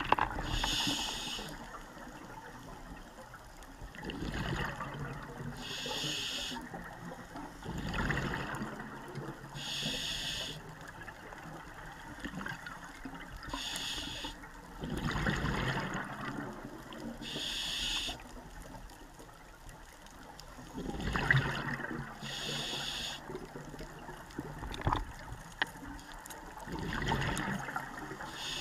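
Scuba regulator breathing heard underwater. A hissing inhale through the demand valve comes about every four to five seconds, and between the inhales come rushes of exhaled bubbles.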